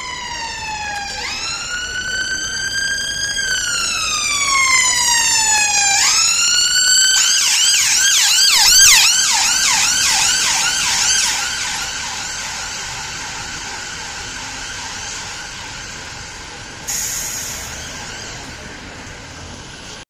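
London Ambulance Service ambulance siren sounding a slow wail that switches about seven seconds in to a fast yelp, several sweeps a second. It grows louder as the ambulance passes close, then fades as it drives away.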